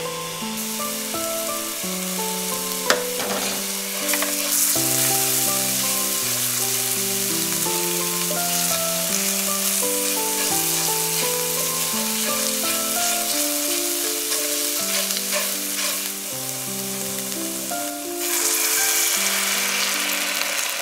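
Chopped aromatics and miso paste sizzling in a hot stainless steel sauté pan while a silicone spatula stirs them, under background music. A sharp click comes about three seconds in, and near the end water is poured into the hot pan and the hiss grows louder.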